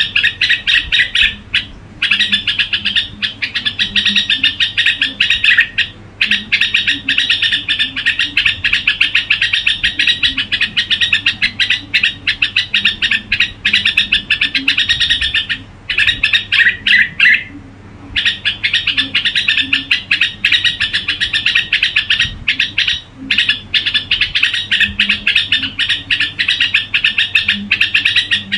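Red-whiskered bulbul singing a long, rapid run of chirping notes, broken by brief pauses every few seconds.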